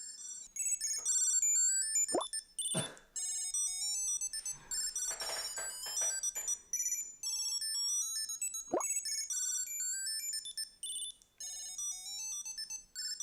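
Tile Mate Bluetooth tracker playing its high-pitched electronic ring melodies, short jingles of quick notes one after another, with a couple of brief falling swoops.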